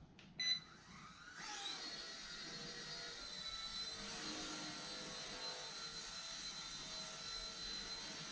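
Eachine E129 mini RC helicopter on one-button takeoff: a short beep, then about a second in its electric motor and rotor spin up with a rising whine. It settles into a steady high-pitched whirring as the helicopter hovers.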